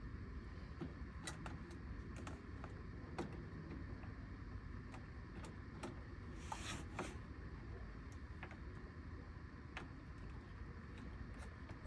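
Scattered light clicks and taps from handling steering-wheel parts and screws during the installation, with a short rasp about six and a half seconds in, over a steady low hum.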